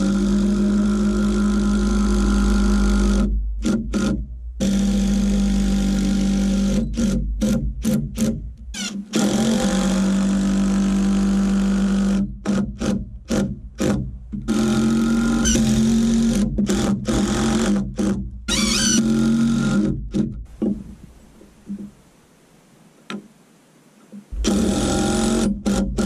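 Background music with sustained tones, breaking off abruptly into silence several times.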